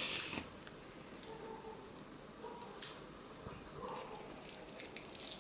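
Playing cards being handled and spread out by hand: soft rustling with a few light clicks and flicks, the sharpest about three seconds in.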